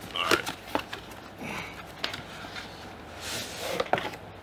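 Cardboard box being opened and handled, with a few light taps and knocks, then a scraping rustle as a hard carry case slides out of it near the end.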